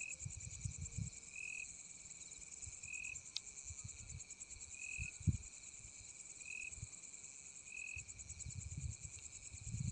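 Night insects, such as crickets, trilling steadily in a high, pulsing chorus. A second insect gives a short chirp about every second and a half. Faint low rumbles come and go underneath.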